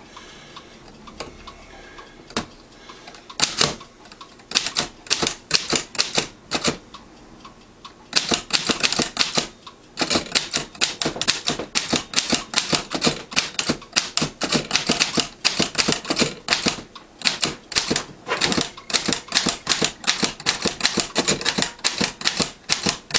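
Keys of a 1910 Corona No. 3 folding portable typewriter being typed in quick runs of sharp typebar clacks. The typing starts about three seconds in and goes on with short pauses between runs.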